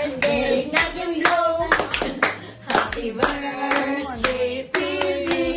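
A small group clapping along steadily, several claps a second, while voices sing together.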